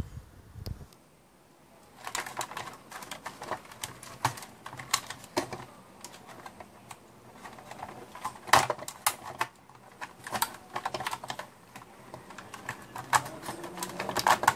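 Irregular small plastic clicks, taps and rattles of wiring connectors and a circuit board being handled inside an opened robot vacuum. They start about two seconds in and grow busier near the end.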